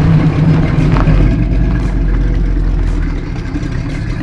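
A 1967 Chevy Nova's 327 cubic-inch L79-spec small-block V8 running under throttle as the car pulls away over gravel: a loud, deep, steady exhaust rumble that eases a little near the end.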